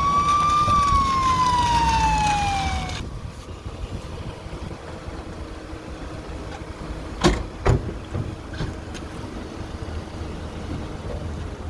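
Police car siren wailing in one slow sweep, rising briefly then falling, cut off suddenly about three seconds in. After it a steady low rumble, with two sharp knocks half a second apart about seven seconds in.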